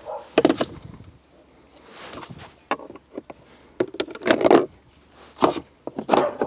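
Flathead screwdriver prying up the plastic storage-tray insert in a 2011 VW Jetta's centre console, then the insert being pulled out by hand: a string of sharp plastic clicks and knocks with short scrapes between them.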